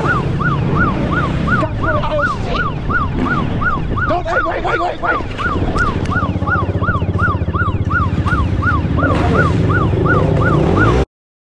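Police siren in fast yelp mode, rising and falling about three times a second without a break, over the steady idle of ATV and dirt bike engines; it all cuts off suddenly near the end.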